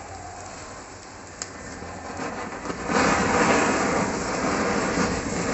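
Burning matchstick chain flaring with a low hiss, then about three seconds in a ground firework fountain ignites and sprays sparks with a loud, steady hiss.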